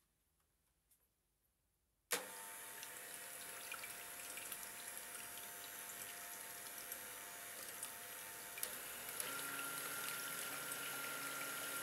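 Electric hand mixer switched on about two seconds in, its twin wire beaters whisking egg whites in a glass bowl with a steady motor whine over a hiss. About nine seconds in it gets louder, with a higher whine.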